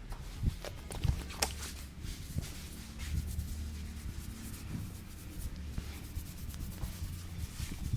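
Hands rubbing mustard oil through hair and over the scalp in a head massage: a continuous rough rubbing and rustling, with a few short knocks in the first two seconds.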